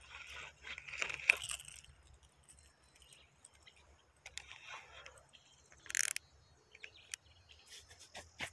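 Close handling noise: rustles, scrapes and sharp clicks of hands on the phone and a fishing rod and line, loudest about a second in, with a short scraping hiss about six seconds in.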